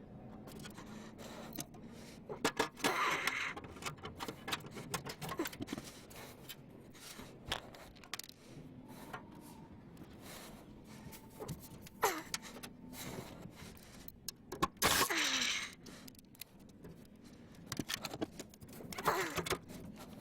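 Cordless drill/driver running in several short bursts, each pitch falling as it spins down, mixed with clinking and clatter of screws and tools being handled.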